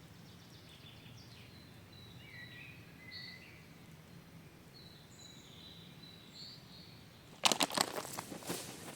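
Faint songbird chirps and calls over steady forest ambience; about seven seconds in, a loud irregular crackling rustle starts abruptly.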